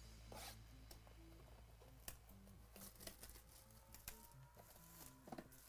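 Faint crinkling and a few light clicks as the plastic wrap on a trading-card hobby box is slit and the box is handled, with soft background music underneath.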